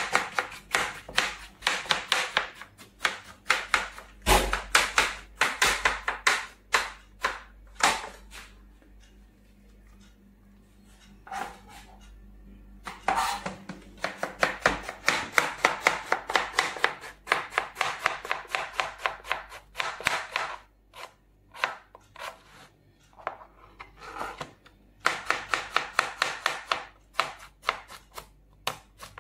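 Kitchen knife chopping bottle gourd on a plastic cutting board: quick, even strokes at about three a second, in runs broken by two short pauses.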